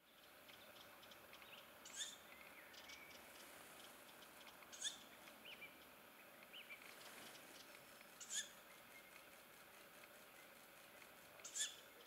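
Ural owl chicks calling: four short, high calls about three seconds apart, over a faint background with a few small bird chirps in between.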